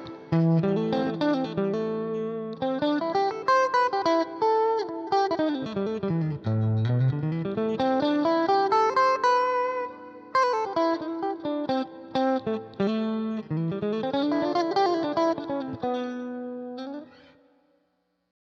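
Electric guitar played through a Roland Blues Cube Hot amplifier set for a light crunch, with the input volume raised and the master turned down, taken from the amp's line out. A riff of picked notes and chords with quick runs down and back up, ending on a chord that rings out and fades about 17 seconds in.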